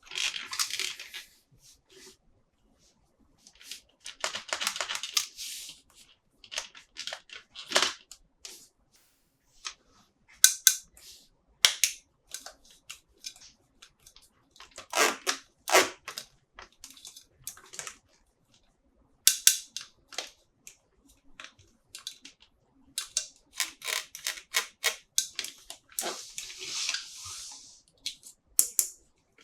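Toy packaging being handled and opened: irregular sharp clicks and taps, with a few rustling bursts of plastic or cardboard lasting a second or two.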